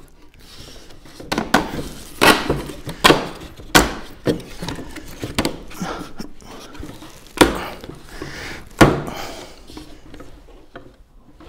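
Valchromat (coloured MDF) shelf panels being pressed and knocked together by hand as the slotted dividers are seated: a series of irregular wooden knocks and clicks with light rubbing between them. The two loudest knocks come near the end.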